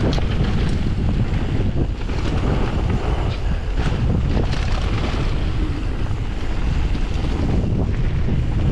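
Mountain bike ridden fast down a gravel trail: wind buffeting the microphone over the steady rumble of tyres on loose gravel, with scattered clicks and rattles throughout.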